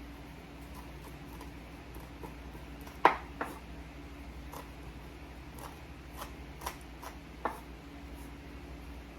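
Kitchen knife chopping fresh oregano on a cutting board: a handful of irregular, scattered knife taps, the sharpest about three seconds in, over a steady low hum.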